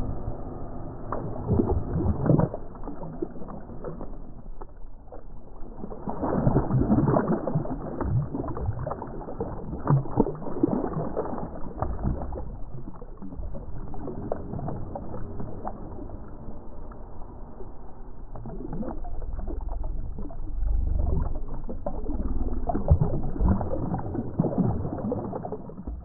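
A striped bass splashing and thrashing in shallow lake water at the shoreline as it is released, with irregular slaps and splashes coming in bursts.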